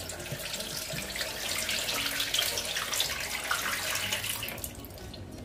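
Water poured from a plastic bowl into a kitchen sink, splashing onto a plastic tray in the basin: the liquid being decanted off settled potato starch. The pour thins to a trickle and fades near the end.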